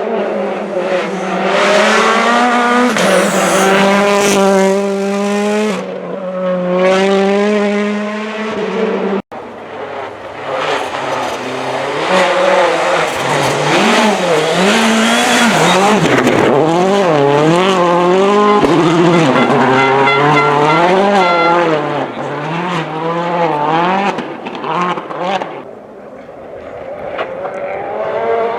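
Rally car engines revving hard on a stage, the pitch climbing and dropping over and over with throttle and gear changes. A hard cut about nine seconds in switches to another car, whose revs rise and fall quickly in rapid succession.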